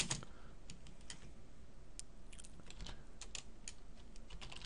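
Computer keyboard keystrokes: irregular, light clicks a few times a second, in short runs.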